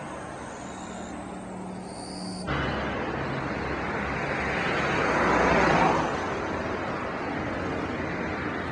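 A road vehicle passing by: a rush of traffic noise comes in abruptly about two and a half seconds in, swells to its loudest a little past halfway, then fades, over a steady low hum.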